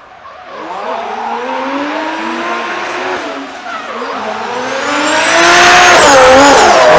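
Drift car's engine revving hard with its pitch rising and falling as it slides, tyres squealing over it, getting louder as the car comes closer over the last couple of seconds.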